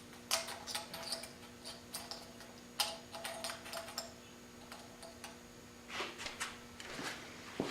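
Irregular light clicks and taps of a small LED headlight bulb being handled and set in place on a hydraulic press, over a faint steady hum.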